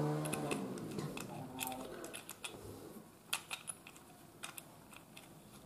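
Scattered light clicks and taps of small metal screws being taken out of a plastic extension-board socket and set down on a tabletop.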